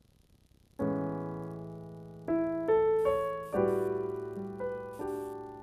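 Solo piano playing a slow jazz ballad: soft chords struck about a second in and again near the middle, each ringing and slowly fading, with a few single melody notes between them.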